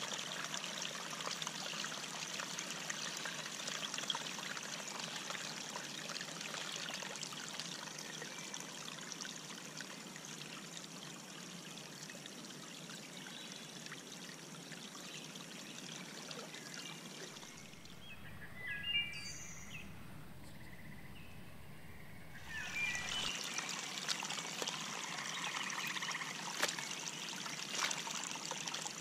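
Pond water pouring and trickling steadily through a leak in a beaver dam. For a few seconds a little past the middle the water is quieter and a few short high chirps are heard.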